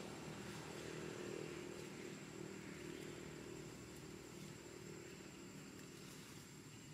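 A distant engine running with a steady low hum that slowly fades away.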